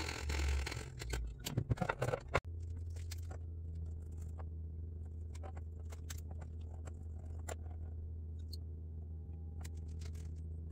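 Hand saw cutting across a wooden guitar fretboard in quick strokes for about the first second, then several sharp clicks and knocks. After that a steady low hum with scattered light clicks and taps as small parts are handled.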